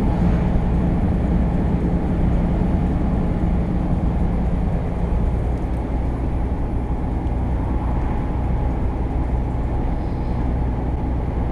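Scania lorry cruising at steady motorway speed, heard from inside the cab: an even, low engine drone mixed with tyre and road noise.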